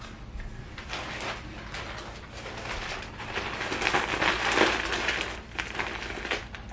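Plastic poly mailer bag crinkling and rustling as it is picked up and handled, getting louder about four seconds in.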